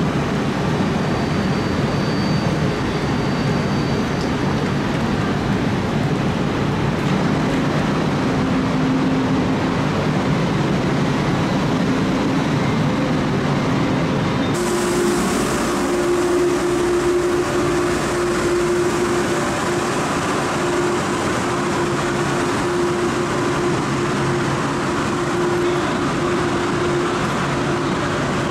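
Steady hum and rumble of high-speed electric trains standing at a station platform. About halfway through the sound changes abruptly to a different steady hum with a clear single tone.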